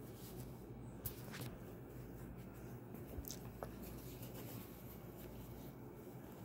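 Faint rustling and a few light clicks from small objects being handled, over a low steady hum.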